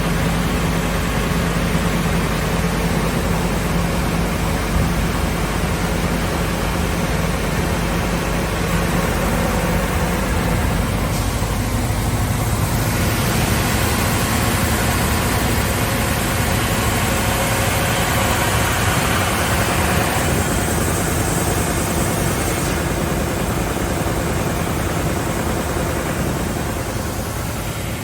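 SCM Sandya 3S wide-belt sander running with its two sanding units, making a loud, steady machine noise with a hiss. The hiss changes in tone a few times as workpieces pass under the belts.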